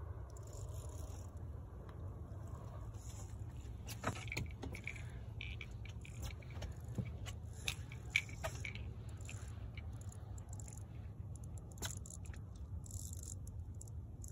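Scattered short splashes of jacks busting bait on the water surface, over a steady low rumble.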